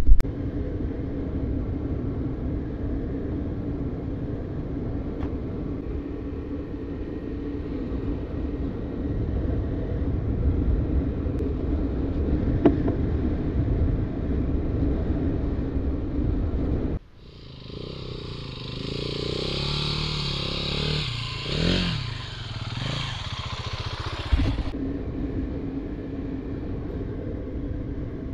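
A vehicle engine runs steadily under way on a dirt trail, with a low rumble. About 17 seconds in it breaks off abruptly for a hissier stretch of about seven seconds, then the engine sound returns.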